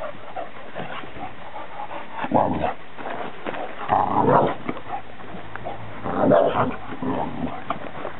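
Dogs barking in play, an American Bulldog and a Scottish Deerhound puppy: three short bouts of barking about two seconds apart.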